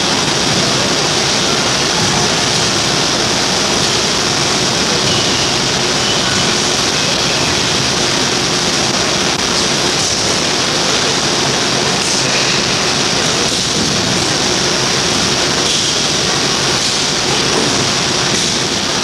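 Loud, steady hiss of noise filling the sound track, with a few faint knocks in the second half.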